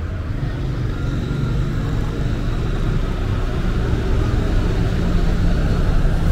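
City street traffic: a low engine rumble from vehicles on the road, swelling slowly louder toward the end.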